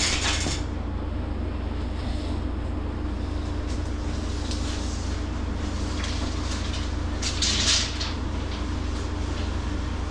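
Steady low hum of the meat cooler's refrigeration unit, with a short rustle at the start and another about seven seconds in.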